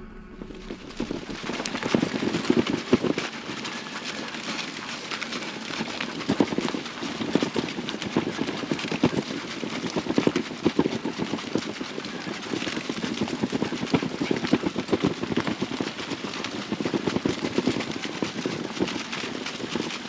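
Crunching, rattling rolling noise of a dog scooter's wheels running over a rough gravel forest track, with many small irregular clicks and crackles.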